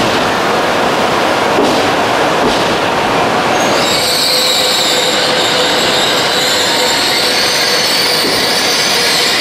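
E7 series Shinkansen pulling slowly into the platform, a steady rolling rumble, joined about four seconds in by a sustained high squeal as the train slows to a stop.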